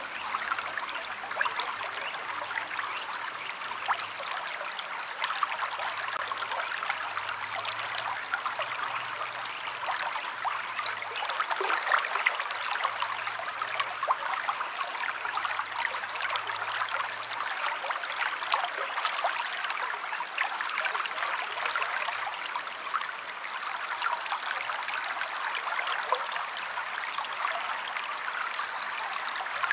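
River water flowing steadily over stones: a continuous babble with many small splashes.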